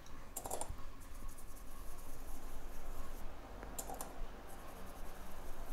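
Light clicks and taps of small repair tools being handled on a microsoldering bench, in two short clusters about half a second in and near four seconds in, over a low steady hum.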